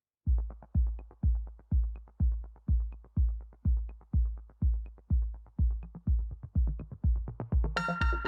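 Electronic background music: a steady deep kick drum about twice a second with a faint tick on every other beat, and a bright synth chord coming in near the end.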